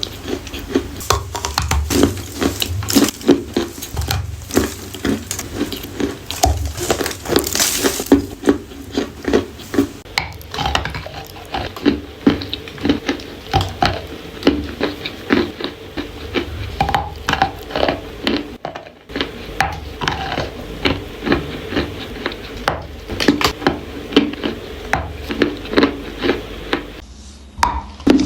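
Edible clay being bitten and chewed close to the microphone: a dense, irregular run of crisp crunches and clicks, with a short pause near the end.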